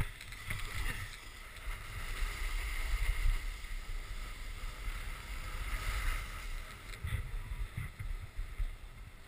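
Wind buffeting an action camera's microphone: an uneven low rumble that swells and fades in gusts, with a faint hiss over it.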